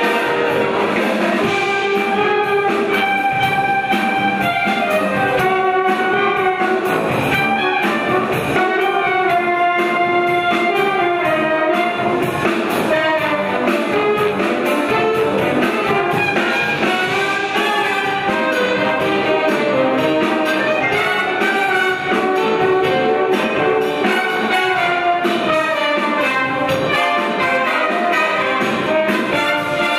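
Wind band of brass, saxophones, clarinets and flutes playing an instrumental passage of a song arrangement, held chords under a moving melody.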